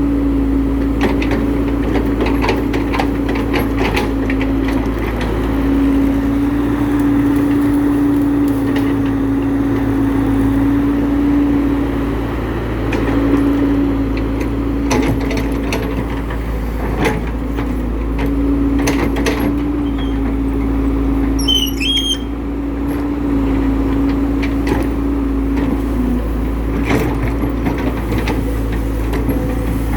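Excavator's diesel engine running steadily under load, its note shifting slightly as it works. Scattered knocks and clunks come from the digging.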